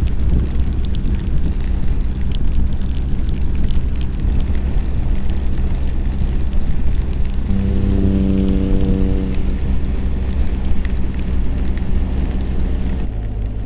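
Wind rush and engine and road noise from a BMW R1250 GS Adventure's boxer twin ridden at motorway speed in rain, heard from the bike's camera. A steady humming tone joins in for about two seconds midway. Near the end the rush drops as the bike slows, leaving a lower engine note.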